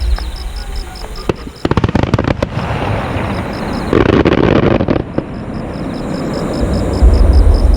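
Aerial fireworks going off: a rapid run of sharp crackling pops about two seconds in, then a louder burst about four seconds in, followed by a heavy low rumble near the end.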